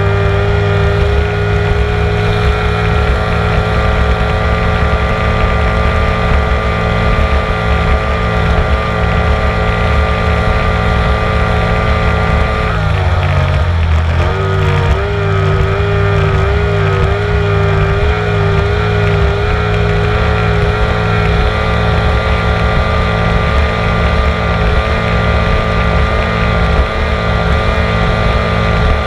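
Racing powerboat engine running steadily at high revs under wind and water noise. About halfway through, the revs drop briefly and climb back up.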